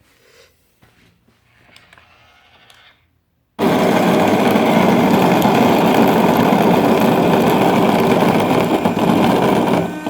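The SILVERCREST SKML 1000 A1 coffee machine's built-in conical grinder grinding coffee beans, set to a milder strength. After a quiet pause it starts suddenly about three and a half seconds in, runs loud and steady for about six seconds, then stops near the end.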